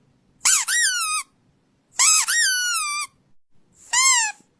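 Squeaky dog toy squeezed three times, each a high squeak that jumps up in pitch and then slides down. The second squeak is the longest and the last is the shortest.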